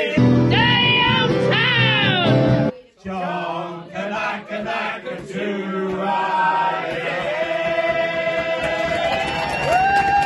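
Several men singing together into microphones without instruments, loud, with sliding notes; the sound drops out briefly about three seconds in, and a long held note rises in near the end.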